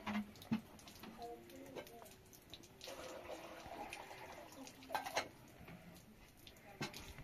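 Water poured from a plastic jerrycan into a small kettle, a hiss lasting about two seconds around the middle. Knocks before and after as the container and the kettle are handled and set down.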